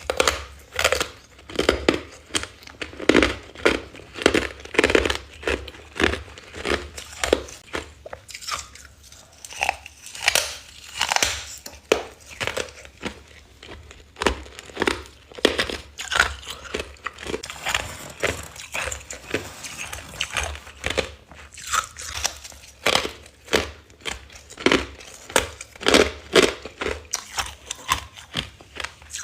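Close-miked biting and chewing of frosty freezer ice: sharp crunches follow one another about once or twice a second.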